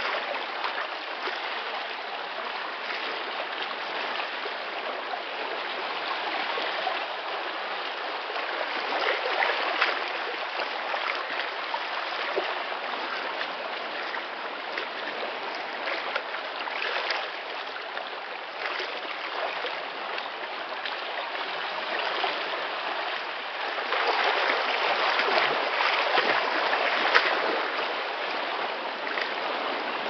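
Atlantic Ocean surf: a steady rush of waves washing in, swelling louder now and then and most of all for a few seconds near the end.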